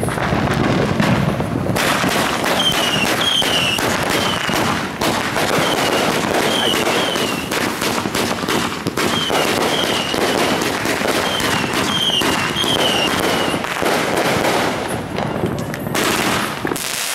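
Winda 'Curfew Breaker' consumer firework cake firing: a dense, near-continuous barrage of rapid pops and crackles, with clusters of short falling whistles.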